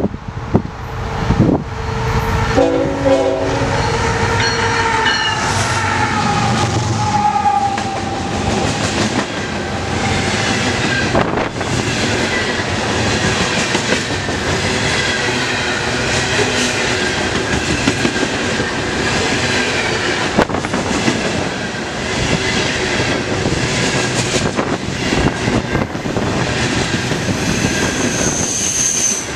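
CN freight train passing close by. The locomotive's horn sounds a multi-note chord over the first few seconds, then the string of freight cars rolls past with a steady rumble and regular clicking of wheels over the rail joints.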